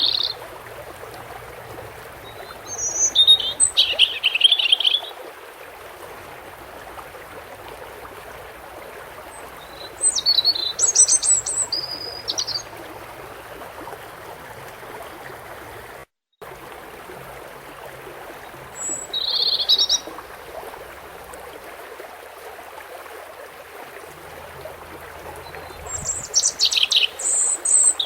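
European goldfinch singing in four short bursts of rapid, high twittering song over a steady rush of running water. All sound drops out for a moment about halfway through.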